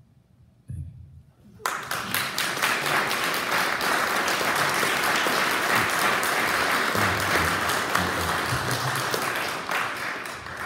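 Audience applauding, starting sharply a little under two seconds in and fading near the end, after a brief low thump just before it.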